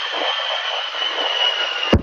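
Two A-10 Thunderbolt II jets flying past, their turbofans giving a steady rushing roar with a high, held whine that sinks slightly in pitch. A sharp knock comes near the end.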